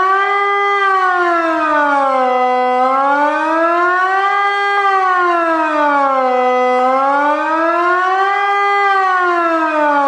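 Wiedmann & Dettwiler electronic civil-defence siren, driven by a Kockum Sonics ET 60/6 controller, sounding the Swiss 'General Alarm' signal, which calls the public to turn on the radio and follow the authorities' instructions. A steady wail that rises for about two seconds and falls for about two, repeating.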